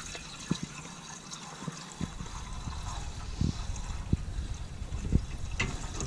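Water pouring from a container into the open radiator filler neck of a Massey Ferguson 65 tractor, a steady trickling splash as the radiator fills, with a few soft knocks.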